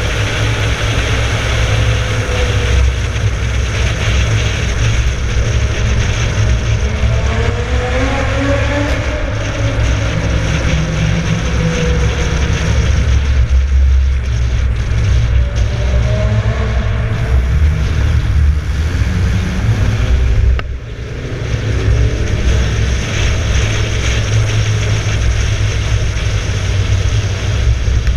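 Mk3 Toyota Supra's turbocharged 1JZ-GTE VVT-i inline-six pulling hard, its pitch rising and falling a few times, with the sound echoing off tunnel walls. The sound drops briefly about twenty seconds in.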